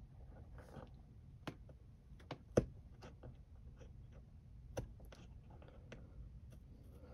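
Faint, scattered clicks and taps of fingers handling a diorama's sky backdrop and a small molded figure, the sharpest about two and a half seconds in.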